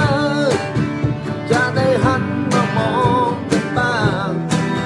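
A man singing a ballad in Thai, accompanied by his own Gibson acoustic guitar, with wavering held notes on the sung phrases.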